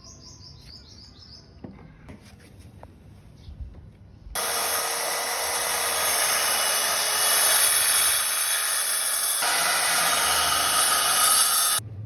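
A power tool starts about four seconds in and runs on wood for about seven and a half seconds, then cuts off abruptly near the end. Before it starts there are a few light knocks and birds chirping.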